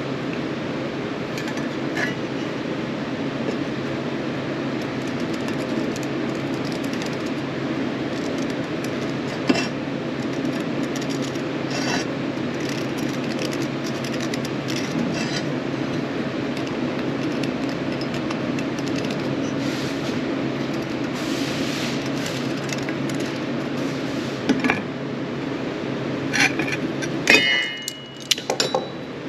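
A steady mechanical running noise with scattered small clicks cuts off near the end, followed by a few light metallic clinks.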